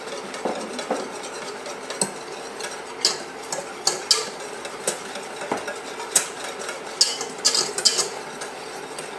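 Wire whisk stirring a thin pastry-cream mixture of hot milk and eggs in a stainless steel saucepan, its wires clinking and scraping against the pot in irregular, quick ticks.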